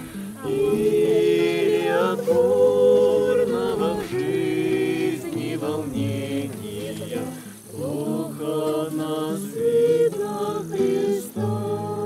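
A small group of men's and women's voices singing together, accompanied by a strummed acoustic guitar.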